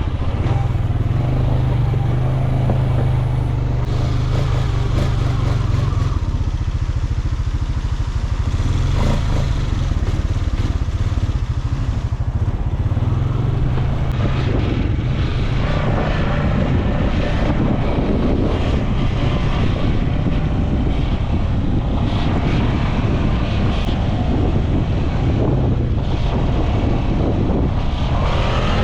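Quad bike (ATV) engine running under way, its low note holding steady for the first half and then shifting up and down.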